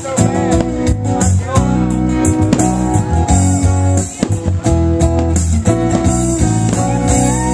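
Band music with strummed acoustic guitars playing an instrumental passage of the song, held chords over a steady beat.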